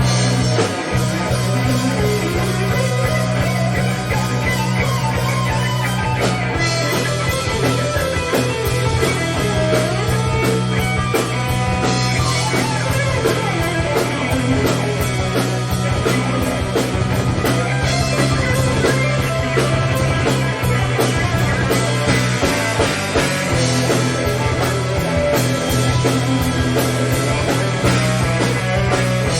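Live hard rock band playing: electric guitar over bass guitar and a drum kit, with a guitar line weaving above a steady low bass note.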